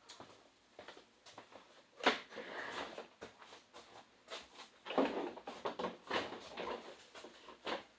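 Handling sounds of small parts and tools during a tablet touchscreen glass repair: a series of sharp clicks and taps, with stretches of rubbing or scraping about two seconds in and again around the middle.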